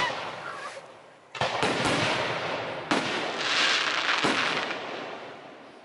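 Aerial fireworks shells bursting: several sharp bangs, the first about a second in and more over the next three seconds, each trailing off in a hissing crackle that dies away near the end.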